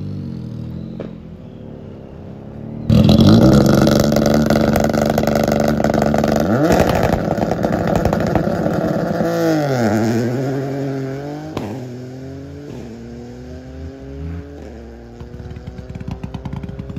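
Turbocharged Ford Fiesta rally car engine held at the start line with the anti-lag system crackling and popping over the engine note. The revs drop and climb again, then the engine note rises in pitch and fades as the car pulls away.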